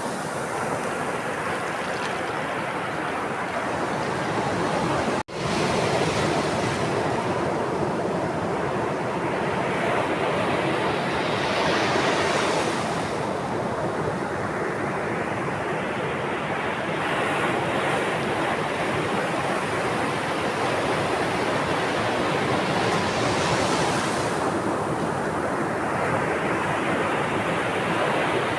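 Ocean waves breaking and washing on a shore: continuous surf that swells every five to six seconds. There is a momentary dropout about five seconds in.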